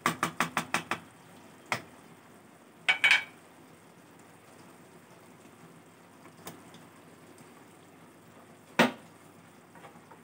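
A wooden spatula knocked against a non-stick kadai: about seven quick raps in the first second, then a single knock, a short clatter about three seconds in, and one last knock near the end.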